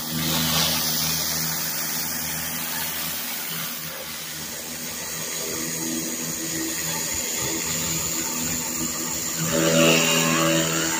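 Pressure washer running with a steady mechanical hum, and the hiss of water jets from a rotary surface cleaner being pushed over wet concrete; the spray grows louder briefly near the end.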